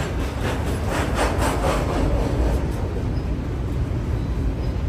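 Double-stack intermodal freight cars rolling past: a steady low rumble, with a run of rapid, even clicking from about half a second to three seconds in.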